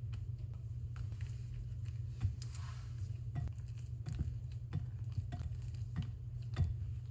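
A utensil stirring wet batter in a bowl, with light irregular clicks as it knocks against the bowl's side, over a steady low hum.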